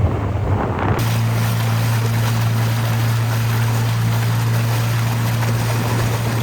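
Motorboat engine running at a steady pitch, with rushing water and wind noise over it.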